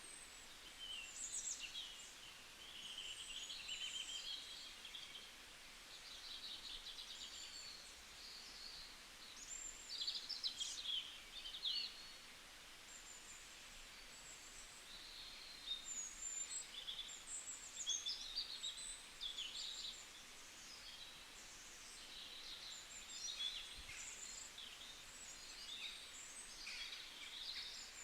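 Forest ambience of several songbirds singing and chirping, busy high chirps and trills coming and going over a faint steady hiss.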